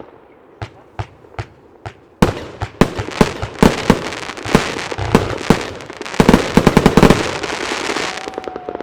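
80-shot fireworks compound battery firing. A few spaced shots come first, then from about two seconds in a fast run of launches and bursts, thickest near the end before it tails off.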